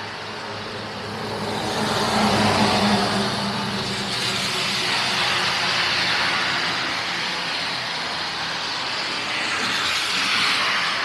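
Road vehicles passing: tyre and engine noise swells about two seconds in, with a low engine hum, eases, then swells again near the end.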